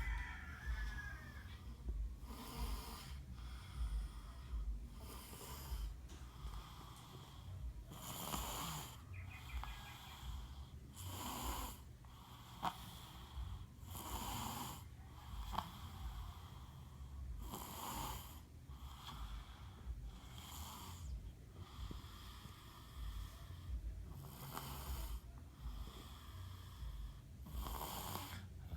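Young child snoring in sleep: a noisy, hissing breath every two to three seconds, over a steady low rumble.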